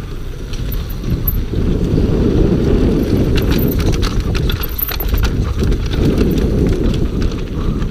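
Scott Gambler downhill mountain bike clattering at speed over wooden boardwalk slats and rough rooty dirt. The tyres rumble steadily, with a run of sharp knocks and rattles from the frame, chain and suspension about halfway through.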